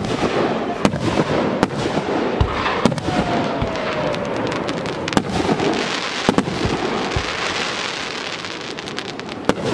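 Aerial fireworks shells launching and bursting, with sharp bangs again and again over continuous crackling. A brief falling whistle comes about three seconds in.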